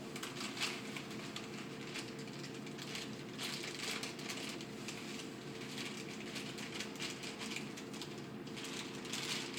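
Faint, irregular scraping and clicking of a utensil working a batter mix in a bowl, over a steady low hum.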